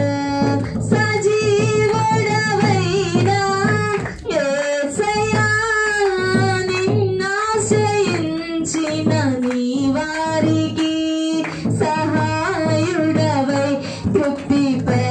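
A woman singing a Christian devotional song into a handheld microphone, with her voice wavering on long held notes over a steady musical accompaniment.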